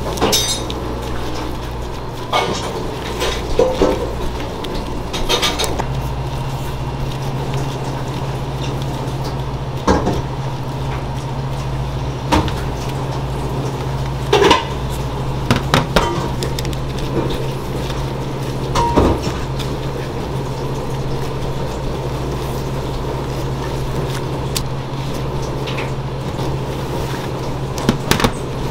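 Kitchen clatter: scattered knocks and clinks of metal pans and utensils over a steady hum whose pitch steps up slightly about six seconds in.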